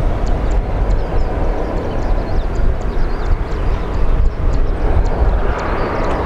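Jet engines of a Boeing 737-800, CFM56-7B turbofans, running at takeoff power during the takeoff roll: a loud, steady deep rumble that grows brighter near the end as the jet comes closer.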